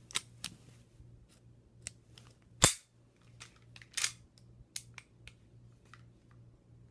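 Metal 1911-style green gas airsoft pistol being handled: a run of small clicks, a single sharp clack a little under three seconds in, and a short rasping clack as the slide is worked about four seconds in.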